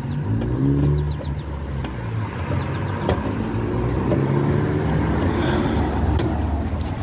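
A motor vehicle engine running and speeding up, its pitch rising twice, with a few light clicks over it.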